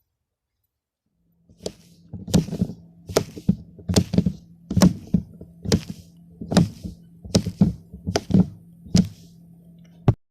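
Pop-it silicone fidget toy bubbles being pressed one after another: sharp pops, roughly two a second and often in quick pairs, over a faint steady hum. The run ends with a single click.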